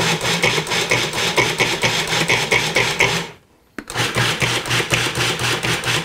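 Cuisinart Pro Classic food processor pulsing chopped raw vegetables into a mash: the motor runs with a fast, rhythmic churning, stops a little over three seconds in with a click, then starts again about half a second later.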